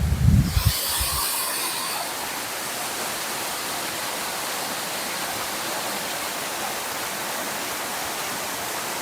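Waterfall rushing in a steady, even roar of falling water, preceded in the first second by a few low bumps on the microphone.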